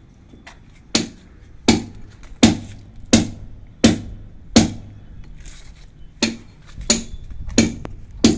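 Rhythmic hammer blows, about ten sharp strikes at a steady pace of roughly one every 0.7 seconds, with a short pause about five seconds in.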